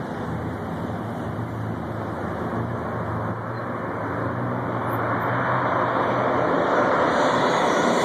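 Southwest Boeing 737 jet airliner on landing approach, its engine noise swelling steadily louder from about five seconds in as it nears, over a steady low hum.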